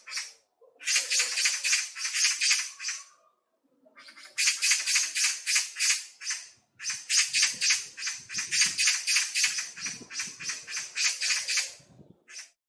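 A songbird singing in runs of quick repeated high chirps, about five notes a second. Each run lasts two to five seconds, with brief pauses between.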